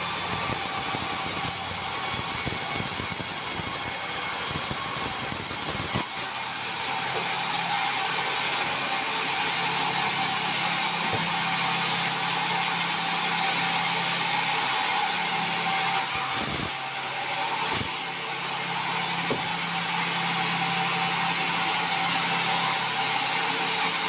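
Large band-saw mill running and sawing red meranti timber: a steady, loud sawing noise over a low machine hum.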